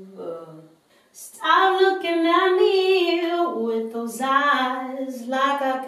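A woman singing solo a cappella, with no instruments. A phrase fades out, there is a short pause, and then about a second and a half in she starts a new song with long held notes that step down in pitch partway through.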